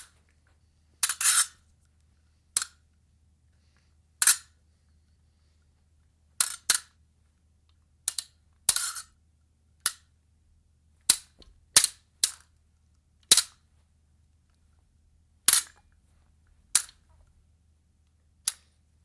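Fencing blades clashing: sharp, bright metal strikes with a short ring, coming singly or in quick pairs at irregular intervals, about sixteen in all.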